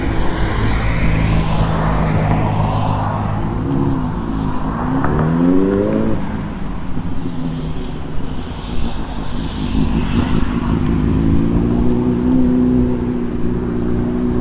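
Street traffic: motor vehicles passing close by, one engine accelerating with a rising pitch about four seconds in before it cuts off, and another engine's steady hum near the end.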